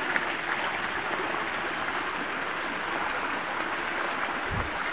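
Steady rush of a flowing stream, with a soft low thump near the end.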